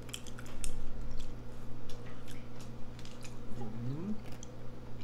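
Close-miked chewing of soft Hot Pocket pastry: wet mouth clicks and squishes scattered throughout, over a steady low hum. A short rising hummed "mm" comes from one of the eaters about three and a half seconds in.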